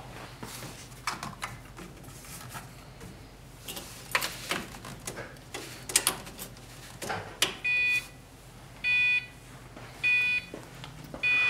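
Scattered light clicks and knocks, then about two-thirds of the way in the 2005 Pontiac GTO's warning chime starts with the ignition switched on: a high beep repeating about once every 1.2 seconds, four times.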